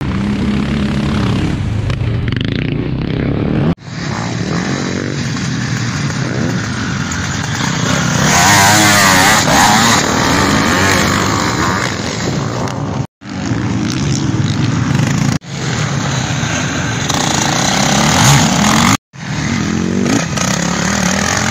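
Motocross sidecar outfits' 700cc two-stroke Zabel engines revving hard and rising and falling in pitch as they race past, with a solo motocross bike and, near the end, a quad engine joining in. The sound breaks off abruptly several times where short clips are cut together.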